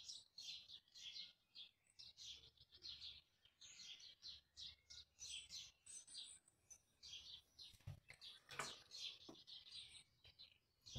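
Faint bird chirping: a steady run of short, high chirps a few times a second, with a couple of soft taps about eight seconds in.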